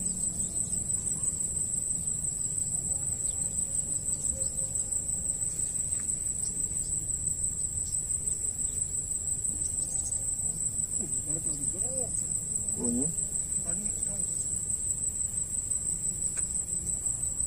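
Steady, high-pitched insect chorus trilling without a break, with a low rumble underneath.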